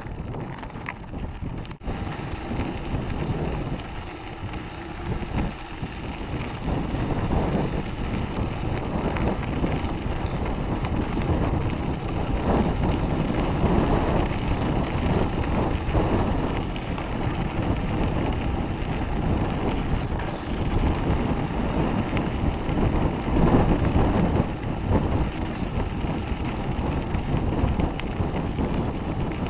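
Wind buffeting the microphone while a mountain bike rolls along a dirt and gravel fire road, with the tyres crunching over loose stones and the bike rattling. It grows louder about seven seconds in.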